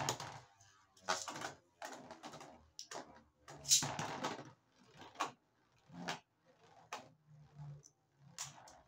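Beyblade Burst tops being launched into a plastic stadium: a ripcord launch at the start and a longer string-ripcord pull about four seconds in, each a loud rasping whir. After that, short clacks about once a second as the spinning tops strike each other and the stadium walls.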